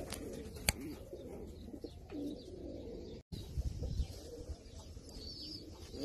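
Frillback pigeons cooing in low, rolling calls, with one sharp click about a second in.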